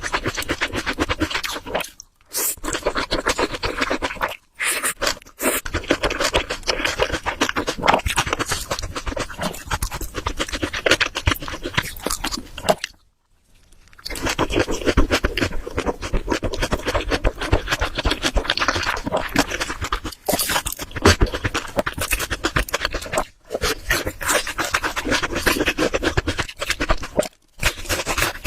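Close-miked eating sounds: wet chewing and smacking of a mouthful of food, dense and crackly. A few short silent gaps break it up, the longest lasting about a second about halfway through.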